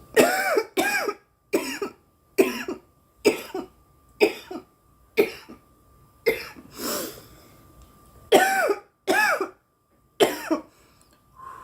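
A woman coughing in a long fit, about fifteen coughs in quick runs with a short pause about two thirds of the way through. The coughing follows an inhale of cannabis smoke catching in her throat.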